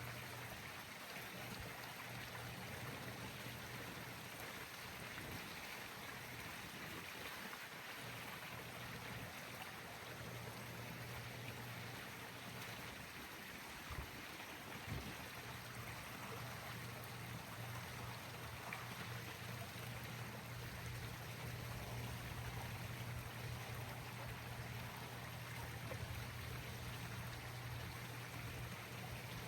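Steady rush of running water with a low, even hum underneath, and two short knocks about halfway through.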